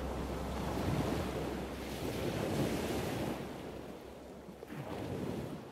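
Ocean surf washing up a sandy beach, with wind. The waves swell a couple of times, then the sound fades away over the last couple of seconds.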